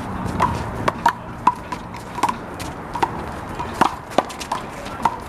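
Rubber handball rally: the ball smacks off hands, wall and ground in a quick, irregular run of sharp pops, about two a second.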